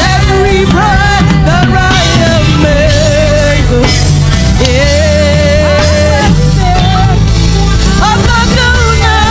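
Live gospel praise music: singers carrying a melody over a full band with drums and bass.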